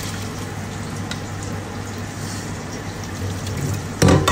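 Steady hiss of food cooking on the stove, with a loud clatter about four seconds in.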